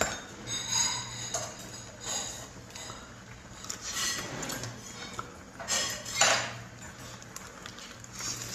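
Chopsticks and tableware clinking and tapping while eating, in scattered knocks, the loudest about six seconds in.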